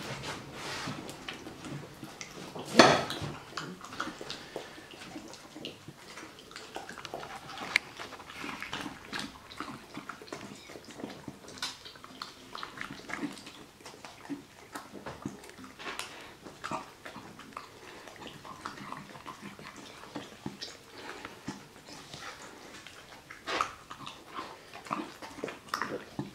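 A dog licking and chewing soft cake and whipped cream off a china plate, with a wet, smacking patter of small sounds. Now and then the plate knocks sharply on the glass tabletop, the loudest about three seconds in.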